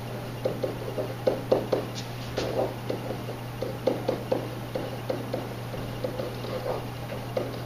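Stylus tapping and scraping on an interactive whiteboard as a word is handwritten: an irregular run of small quick taps, over a steady low electrical hum.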